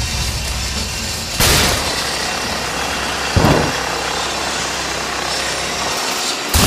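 A steady loud rumble and hiss, broken by two sudden loud bangs: one about a second and a half in that rings on, and a deeper thud about two seconds later.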